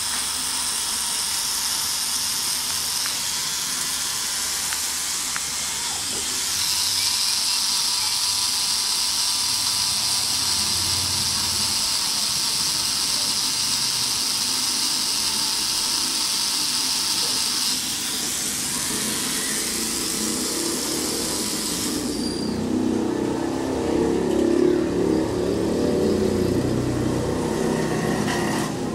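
Tattoo machine running steadily with a continuous high, hissing whir. It is stronger for about ten seconds in the middle and stops about 22 seconds in. Lower, uneven sounds follow near the end.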